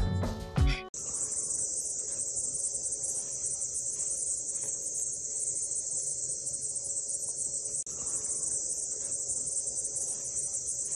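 A steady high-pitched hissing chirr with a brief break about eight seconds in, after a short bit of speech at the very start.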